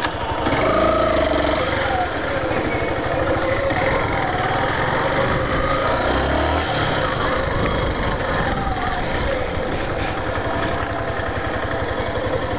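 Yamaha Factor 150's single-cylinder four-stroke engine running steadily on the move, its pitch rising and falling a little.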